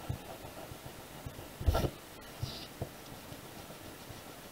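Eraser rubbing pencil lines off drawing paper, a faint scrubbing with a short louder brush a little under two seconds in.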